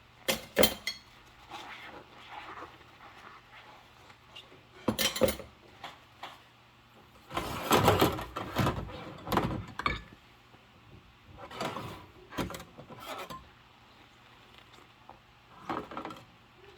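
Dishes being hand-washed with rubber gloves: intermittent knocks, clinks and scrubbing scrapes in short bursts with quiet gaps, busiest about halfway through.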